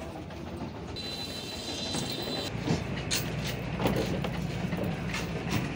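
Steady vehicle-like rumble with several knocks from about the middle on, as a cow's hooves come down a wooden truck unloading ramp.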